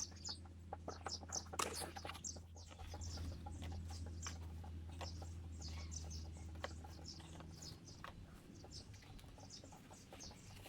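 Chickens clucking, with many short, high calls scattered throughout. Under them is a low steady hum that stops about three-quarters of the way through.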